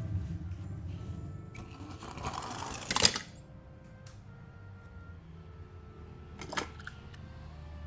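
Die-cast toy cars handled in a cardboard box: a rattling clatter that builds to a sharp clack about three seconds in, and another single click a few seconds later.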